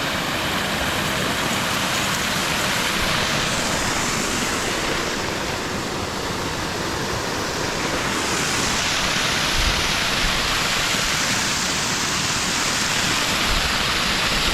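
Waterfall rushing steadily, a loud, even wash of falling water.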